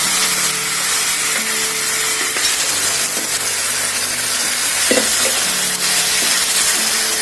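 Pressure-cooked masala chicken sizzling steadily in hot oil with the fried onions in a pan while it is stirred, with one louder knock about five seconds in.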